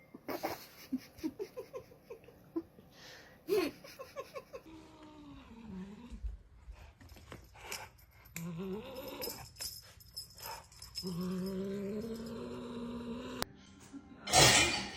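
A pet animal's drawn-out cries, several of them gliding up and down in pitch and one held steady for a couple of seconds, among scattered knocks and clicks. A loud, sudden noise comes near the end.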